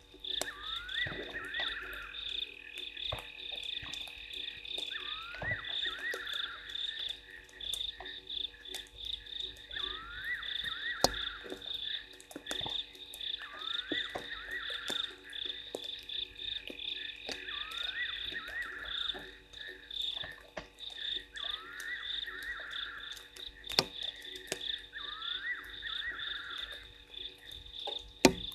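Frog chorus at a waterhole at night: a steady high-pitched pulsing trill, with groups of rising calls repeating every three to four seconds. Scattered sharp clicks run through it.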